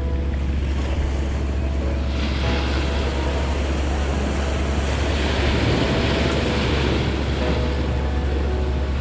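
Wind rumbling on the microphone over the wash of water at the shore, the water noise swelling about two seconds in and again more strongly around the middle.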